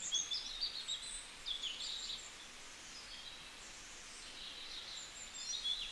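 Faint birdsong: scattered short, high-pitched chirps and quick falling calls over a faint hiss.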